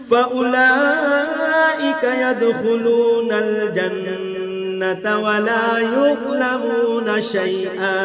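A male qari reciting the Quran in Arabic in melodic tajweed style, a single unaccompanied voice holding long, ornamented notes that glide up and down in pitch, with a few short pauses for breath.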